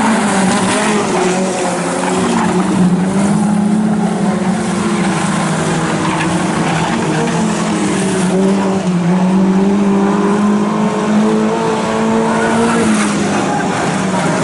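Junior sedan race cars racing on a dirt speedway, their engines running hard in a continuous drone whose pitch wavers, dipping and climbing again a couple of times as the cars go through the turns.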